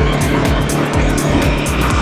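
Music with a steady drum beat, over the road and traffic noise of a motorbike ride.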